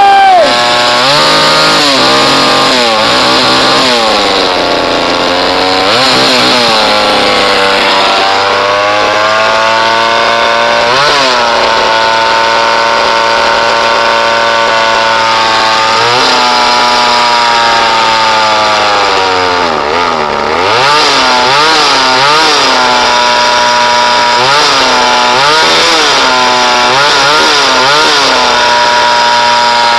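Two-stroke chainsaw engine on a homemade minibike, running and being revved over and over, its pitch rising and falling. In the first half the revs swell and sag slowly; in the second half it is blipped quickly, about once a second.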